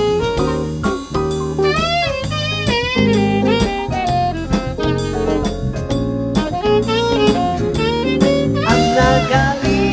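Live band playing a slow song, with a saxophone carrying the melody line over drum kit, electric guitar and keyboards.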